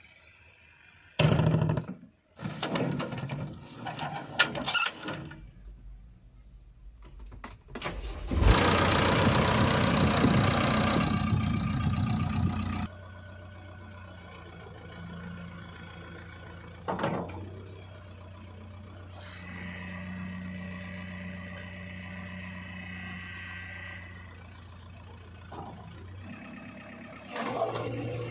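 JCB 3DX backhoe loader's diesel engine starting. A few clunks come first, then about eight seconds in the engine fires up loudly for several seconds. It then settles to a steady idle.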